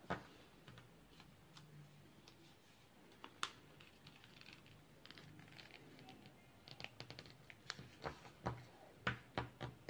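Origami paper being folded and creased by hand: faint rustling with sharp crinkles and taps, one near the start, another about three and a half seconds in, and a quick flurry in the last few seconds.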